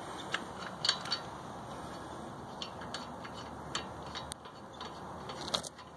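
Lug nuts being spun onto the wheel studs by hand: scattered light metal clicks and taps at irregular intervals, the sharpest near the end.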